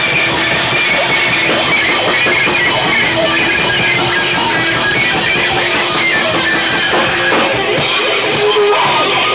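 Loud rock music with guitar, playing continuously.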